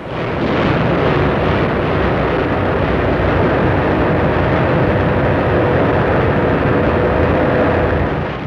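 Steady, loud engine rumble of German S-boats (Schnellboote) on an old film soundtrack, fading in at the start.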